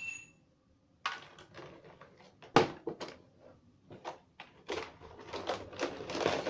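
Small hard plastic pieces of a toy kitchen set being handled: scattered knocks and clicks, one sharp knock a couple of seconds in, then a denser clatter of pieces tapping together in the second half.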